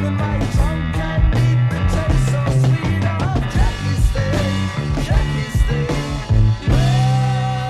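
Early-1970s psychedelic rock from a vinyl record: an instrumental passage of bending electric guitar lines over a strong bass line, with one long held note near the end.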